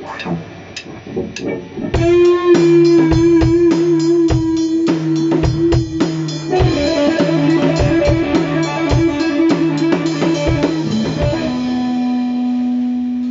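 Guitar music with a drum beat. After a few sparse plucks and clicks, the band comes in about two seconds in: a guitar plays long, wavering held notes over steady drum hits and bass, and the passage ends on one long sustained note.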